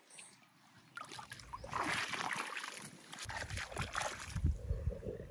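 Water splashing and sloshing for about two seconds, then low rumbling thuds.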